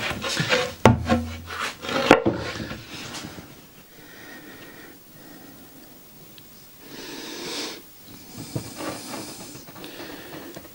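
Wooden panels knocked and set down on a workbench, a few sharp knocks in the first two seconds, then two short hissing squirts as wood glue is squeezed from a bottle.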